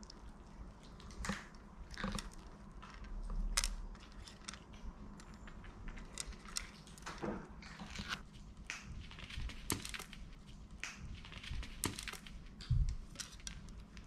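Maltese puppies crunching dry kibble, a steady run of irregular crisp crunches. Two dull thumps stand out, one a few seconds in and one near the end.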